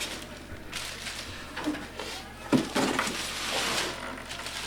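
Styrofoam and plastic packaging being handled and pulled away, rustling and scraping, with a couple of short knocks about halfway through.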